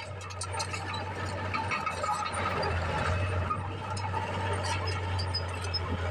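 Small crawler dozer's engine running with a steady low drone while its steel tracks and blade work through broken rock and soil, giving many sharp clicks and knocks.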